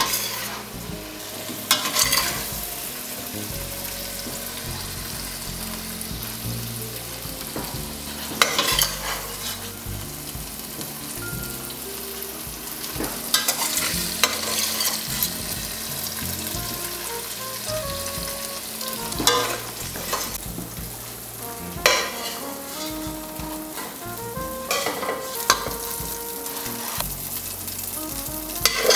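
Steady sizzling hiss of turkey pot pie filling cooking in a pot on a lit gas burner. Several short clatters and rustles break through it as the chunky filling of potatoes, carrots and turkey is pressed into pie crusts by a gloved hand.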